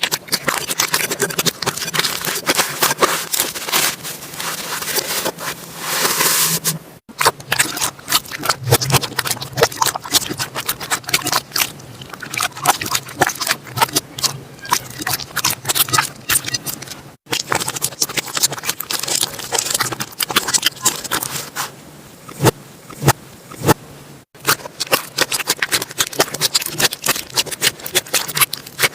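Slime being played with close to the microphone: dense, rapid crackling and popping clicks. The sound breaks off abruptly three times, picking up again straight after each break.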